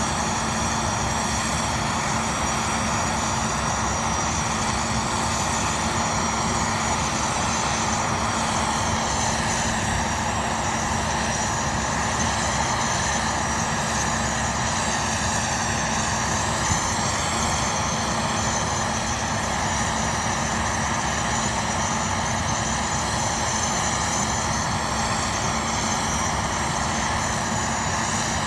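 Jet airliner engines running steadily: a continuous roar with a whine whose pitch drifts slowly up and down, without the swell of a takeoff run.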